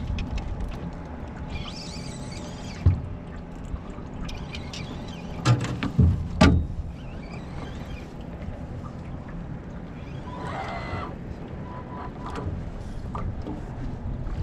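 Water lapping against a small aluminium fishing boat as it rocks, broken by sharp knocks on the boat: one about three seconds in and a quick cluster of three, the loudest, around six seconds. A brief hiss comes about ten seconds in.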